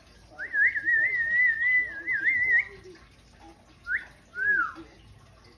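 Budgerigar whistling: one long warbling whistle of about two seconds, then a short upward whistle and a brief rising-and-falling note.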